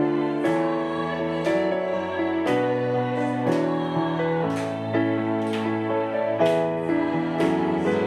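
Women's choir singing a hymn over piano accompaniment, with a piano chord struck about once a second under the held voices.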